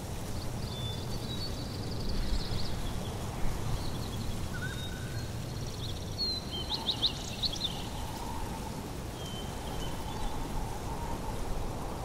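Outdoor nature ambience: a steady rushing background with small birds chirping and trilling high above it, including a quick burst of chirps about seven seconds in.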